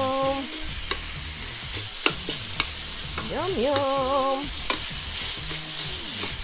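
Raw ground wagyu beef sizzling in a stainless steel pan with mushrooms and onions as a metal utensil stirs and breaks it up, clicking and scraping against the pan. Twice a short pitched tone rises and then holds for about a second.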